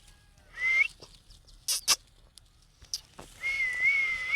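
Pet parrot vocalizing: a short rising whistle, then two quick harsh chirps, then a longer, slightly wavering held whistle.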